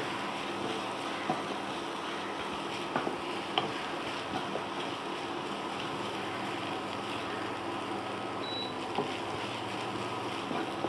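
Onion and a ground coconut, mustard and green chilli paste frying in oil in a pan: a steady low sizzle with a few small ticks now and then.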